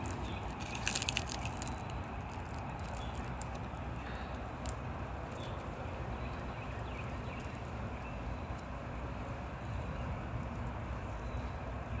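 Steady outdoor background noise, a low rumble with scattered light clicks and rustles, and a brief louder crackle about a second in.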